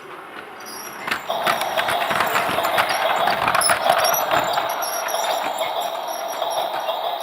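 Toy train running: a steady motor hum starts about a second in and keeps going, with quick clicking and rattling over the next few seconds.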